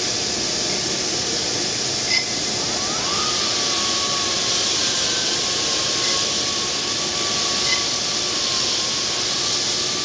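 Dressing stick held against a spinning diamond CNC tool in a granite router spindle, a steady grinding hiss with a whine that rises about three seconds in and then holds steady. The tool is being dressed to take lines out of its face.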